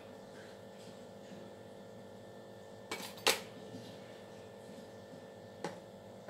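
Ghee jar set down on a stainless steel plate: a sharp clink about three seconds in, with a lighter click just before it and another near the end, over a faint steady hum.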